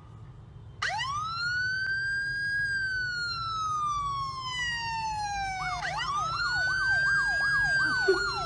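Recorded emergency-vehicle siren played through a smartphone speaker: a wail rises and slowly falls, then starts again about six seconds in, with a faster yelping siren layered over it. A brief sharp sound comes near the end and is the loudest moment.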